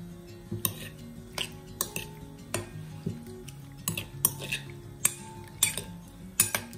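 Metal spoon clinking against a glass bowl while tossing sliced cucumbers in their pickling liquid: about ten sharp, irregular clinks. Soft background music plays underneath.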